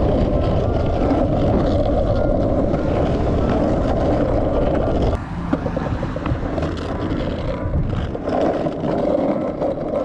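Outdoor street noise: road traffic with a steady low rumble, easing a little about five seconds in.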